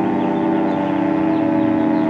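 Federal Signal 2T22 two-tone outdoor warning siren sounding a loud, steady chord at an even pitch during its test.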